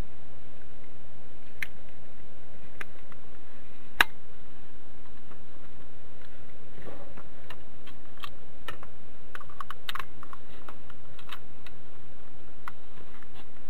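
Plastic case parts of a clamp meter being handled and fitted together: scattered light clicks and taps, one sharper click about four seconds in and a cluster of clicks in the second half, over a steady background hiss.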